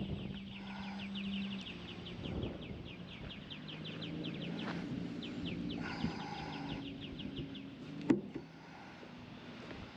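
A bird trilling in a fast run of short, high, down-slurred chirps, about ten a second, that stops about three quarters of the way through. A low steady hum sits underneath, and there is a single sharp click near the end.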